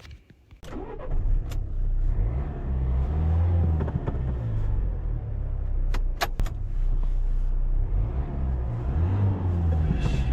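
Dacia Duster's 1.5 dCi four-cylinder turbodiesel engine running, starting about half a second in, its note rising and falling slightly, with a few sharp clicks along the way.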